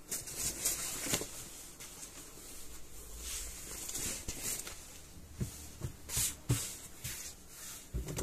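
Cloth rustling and swishing as lengths of pant fabric are handled, folded and spread on a cutting table, with a few soft knocks of hands on the table.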